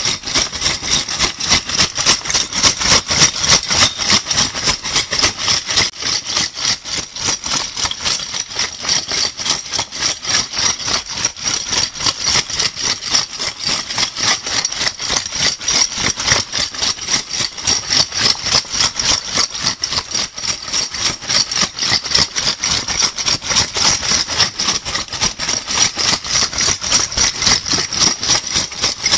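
Metal crown bottle caps being shaken together in a steady, rapid rattling and clinking.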